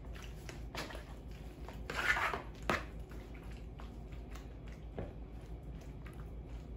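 Serving spoon stirring chopped fruit in cream and condensed milk in a plastic mixing bowl: soft wet squishing, with a louder scrape about two seconds in and a few short knocks of the spoon against the bowl.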